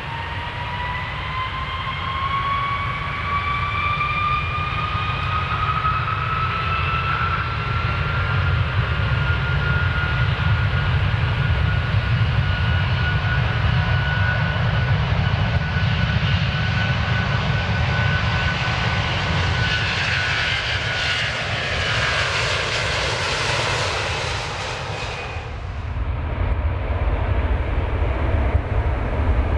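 Airplane taking off: the engines spool up with a rising whine that levels off, over a steady low rumble. A broad rushing engine noise builds to its loudest and then drops off sharply about 26 seconds in, leaving the rumble.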